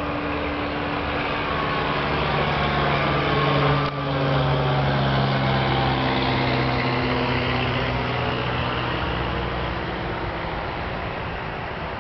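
Motor vehicle engine hum, swelling to its loudest about four seconds in, then fading slowly as its pitch drops.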